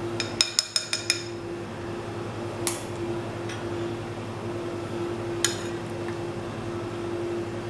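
Glass bowls and spoons clinking as dishes are handled on a table: a quick run of about six ringing clinks in the first second, then single clinks about 3 s and 5.5 s in. A steady low hum runs underneath.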